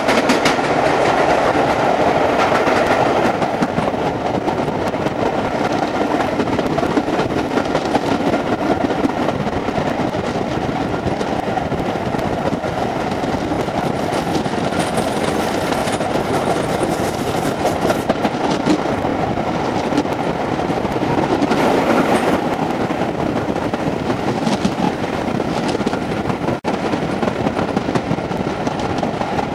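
A train running along the track: a steady rumble with the clatter of wheels over rail joints.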